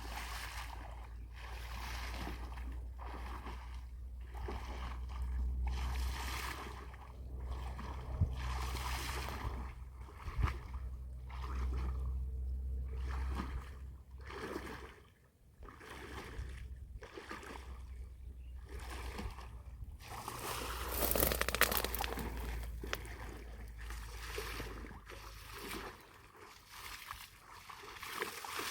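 Water splashing and sloshing around a small fishing boat in regular strokes about once a second, over a low rumble; the splashing grows denser and louder for a couple of seconds past the middle.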